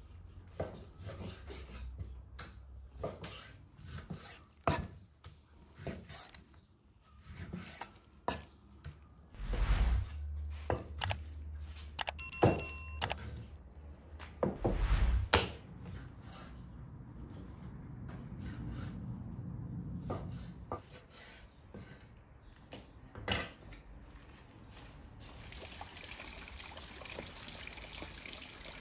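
Knife blade knocking on a wooden chopping board while raw lamb is sliced, many short sharp knocks. About twelve seconds in a short ringing tone sounds, and near the end running water starts, a steady splashing hiss.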